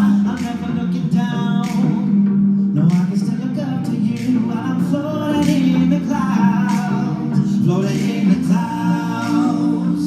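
Male a cappella group singing in close harmony into microphones, with a held low note under moving upper voice parts.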